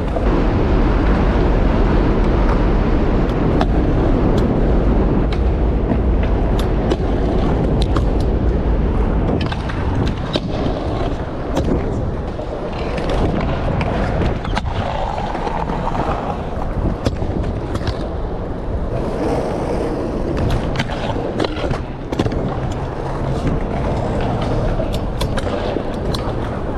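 Trick scooter wheels rolling over the skatepark surface, with scattered sharp clacks from landings and impacts. A heavy low rumble fills roughly the first nine seconds.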